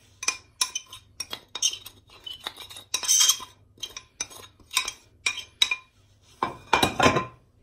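Metal spoon scraping and tapping icing sugar out of a metal bowl: a run of sharp clinks with a short ring, loudest near the end.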